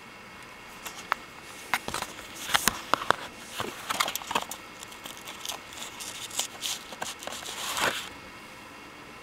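Plastic crackling and tearing in a string of sharp crinkles and clicks as fingers pick and peel the plastic seal off a CD case; it stops about eight seconds in.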